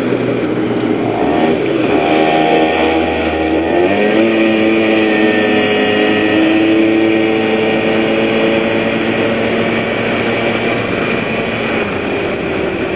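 PGO PMX 110cc scooter engine, cold and not yet warmed up after stalling, revving up as the scooter pulls away from a stop. Its pitch climbs over the first few seconds and then holds steady at cruising speed, over road and wind noise.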